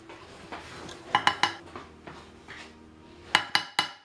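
Hammer blows on a punch driven against the heat riser valve of a 1960 Chrysler cast-iron exhaust manifold held in a vise, each blow a sharp metallic clang. There are three quick blows about a second in, then a faster run of four near the end.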